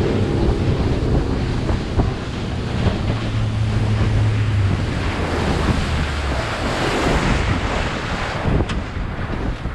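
Wind buffeting the microphone on a boat at sea, over the rush of water and a low steady hum of the boat that fades out about six seconds in.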